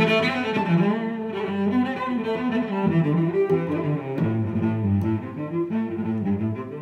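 Instrumental outro music: a low-pitched melody of held notes moving from note to note.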